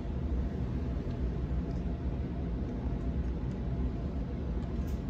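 Waratah B-set electric train running, heard from inside the carriage: a steady low rumble of wheels and running gear, with a faint steady whine from the IGBT-VVVF traction inverter and motors.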